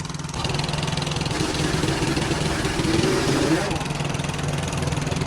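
An engine idling steadily with an even, low pulse, a hiss joining it under a second in.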